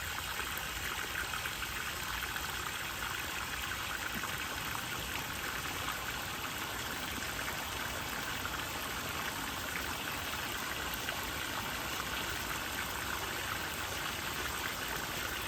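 Water running steadily down a backyard pond's stream and waterfall, an even rush and trickle that neither starts nor stops.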